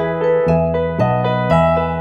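Background music: a gentle piano melody over held bass notes, with a new note struck about every half second.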